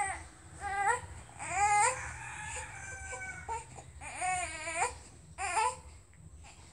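Young infant vocalizing in about five short, high-pitched cries, the longest two near 2 s and 4.5 s.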